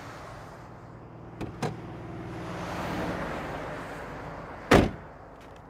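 Car sounds: a steady vehicle hum that swells about three seconds in, two light clicks about a second and a half in, and a single loud thud near the end, a car door shutting.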